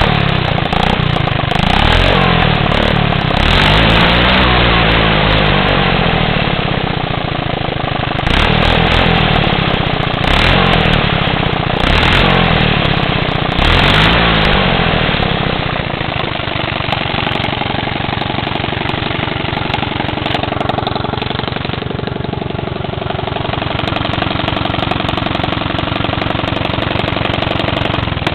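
A vehicle's engine rumbling through its exhaust: it is revved in about six short blips over the first half, each rising and falling in pitch, then settles into a steady idle with a rapid, even beat.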